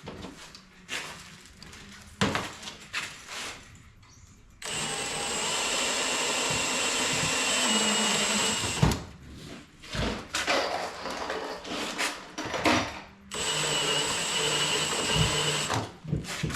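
Power drill running a step bit to open up a hole in a Tesla Wall Connector back plate: two steady whining runs, one of about four seconds and a shorter one near the end, with knocks and handling clatter between.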